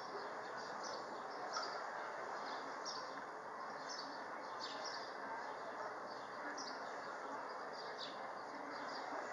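Small birds chirping repeatedly in short, high, falling notes, over a steady rush of wind and water noise.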